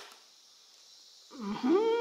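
Over a second of near silence, then a man hums a note that slides up and holds steady.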